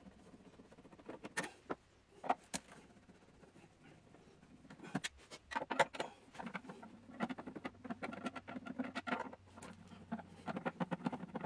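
Long Torx screwdriver working the recessed case screws out of a Macintosh SE's plastic back: irregular small clicks and scrapes of the bit in the screws, coming thicker from about halfway through.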